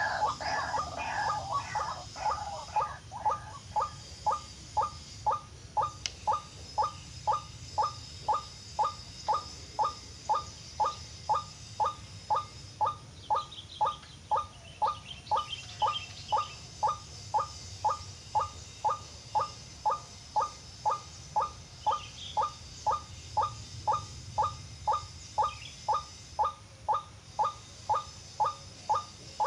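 White-breasted waterhen call: one short note repeated steadily, about twice a second, with a few faint higher chirps mid-way.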